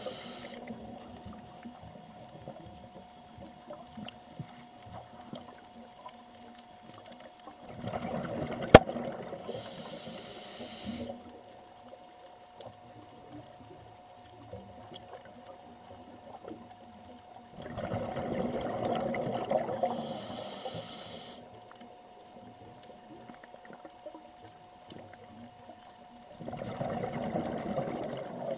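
Scuba diver's regulator underwater: three long bursts of exhaled bubbles, each about three seconds long and roughly nine seconds apart, with quieter stretches between. A sharp click comes in the first burst, and a faint steady hum runs underneath.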